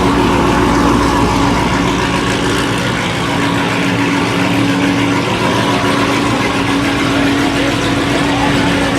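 Muscle car engines running as the cars roll slowly past in a cruise parade, a steady drone without sharp revs.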